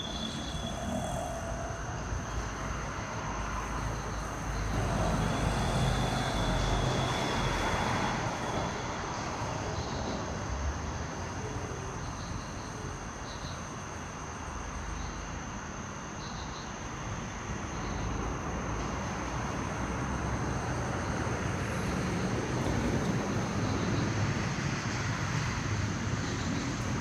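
Steady rumble of distant road traffic, with a faint high steady whine.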